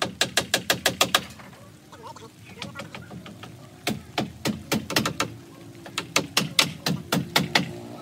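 Hammer driving nails into the wooden roof frame: rapid strikes, about six a second, that stop about a second in and start again a few seconds later.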